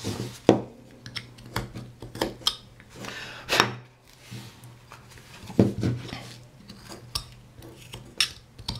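A carving knife and a wooden carving blank being handled on a workbench: irregular clicks and knocks, with a few scraping strokes of the knife blade in the wood, over a faint steady hum.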